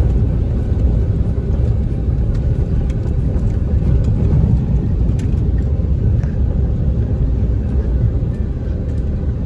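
A vehicle driving: a steady, loud, low rumble of road and engine noise with no distinct engine note.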